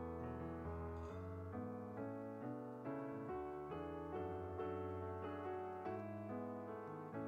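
Background piano music: a gentle run of single notes and chords at an even pace.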